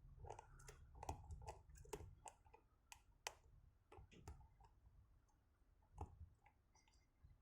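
Faint small metallic clicks and ticks of a hook pick working the pin stack of a vintage Schlage padlock. They come thick for the first four seconds or so, then thin out to a few scattered clicks.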